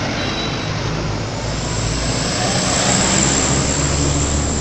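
Motorcade cars driving past at close range: engine and tyre noise swelling to its loudest about three seconds in, then easing off.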